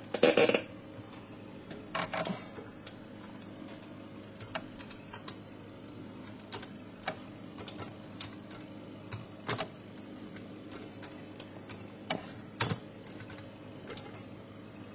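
Keys on the Amiga 1200's keyboard being pressed: irregular clicks, with a louder clatter just after the start and a few sharper presses later, over a faint steady hum.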